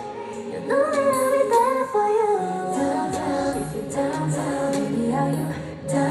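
Pop music played live at a concert, with female singing; a low bass line comes in about two and a half seconds in.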